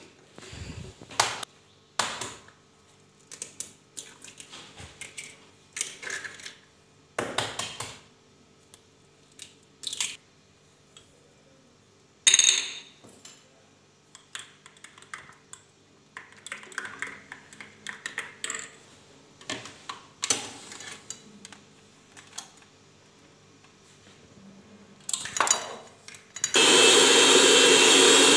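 Eggs cracked one after another against the rim of a bowl, a series of short taps, clicks and shell knocks with pauses between. Near the end an electric hand mixer starts and runs steadily, beating the raw eggs.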